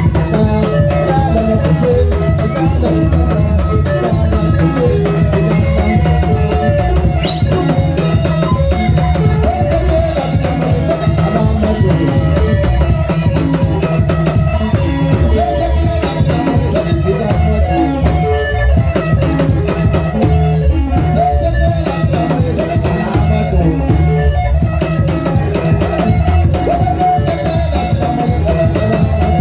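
Live band music played loud, with a drum kit keeping a steady beat over bass and other instruments.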